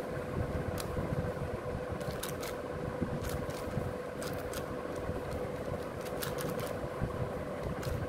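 A plastic 6x6 speed cube being turned by hand: scattered quick clicks and clacks of its layers turning, in little clusters, over a steady low hum with a faint steady tone.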